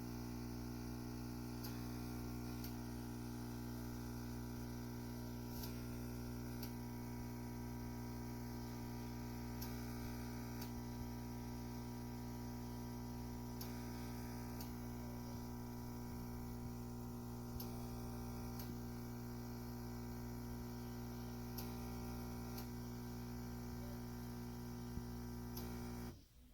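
Steady electrical mains hum with faint, scattered clicks, cutting off suddenly near the end.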